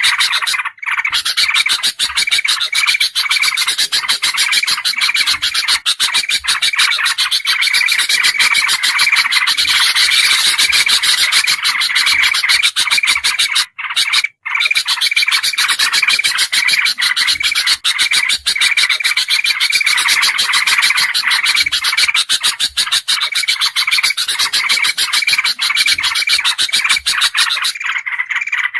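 Dense, noisy chatter of bulbul calls, several birds layered together as a looped bird-lure (pikat) recording. A call figure repeats about twice a second. The sound cuts out briefly about a second in and again halfway through.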